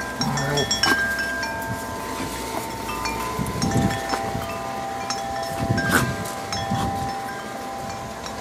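Wind chimes ringing in gusting wind: several long-ringing tones at different pitches sound at irregular moments and overlap. There are a couple of sharp clinks along the way.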